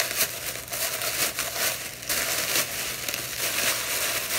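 Wrapping crinkling and crackling continuously as a gift is unwrapped by hand.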